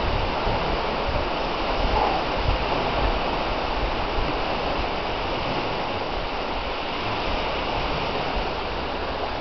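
Small waves from a lake breaking on a sandy beach: a steady wash of surf.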